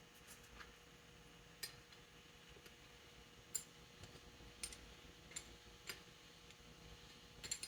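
Faint, irregular metallic clicks and clinks of hand tools and fasteners as a pump is bolted to an engine block. There are about eight separate light ticks spread out with gaps, and near silence between them.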